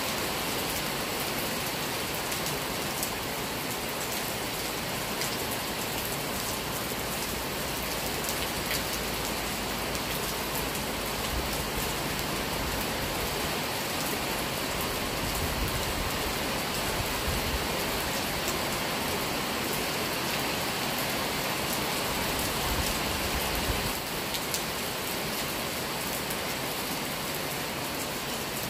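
Steady rain falling on trees and vegetation: an even, continuous hiss with scattered sharper ticks of individual drops.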